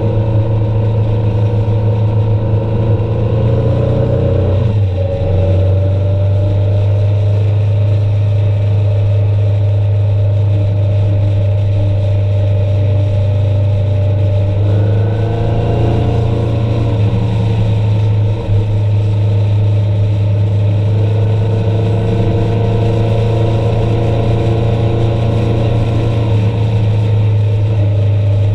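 A vehicle engine running loudly and steadily under way on the road. Its note changes about 5 seconds in and again about 15 seconds in, as with a gear or throttle change.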